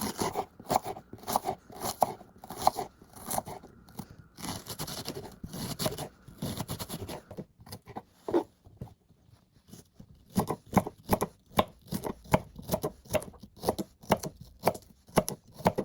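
Knife chopping vegetables on a cutting board, in steady strokes about two to three a second, with a short pause midway.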